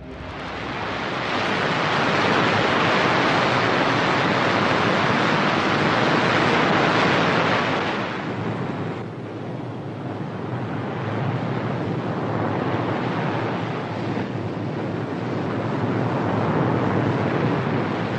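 Sea surf washing onto a beach: a loud, steady rushing that swells, eases off about eight seconds in, and builds again.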